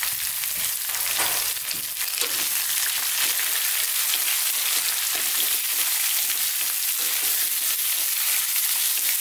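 Diced raw potatoes, chopped white onion and garlic-ginger paste sizzling steadily in hot sunflower oil in a non-stick frying pan, stirred with a wooden spatula.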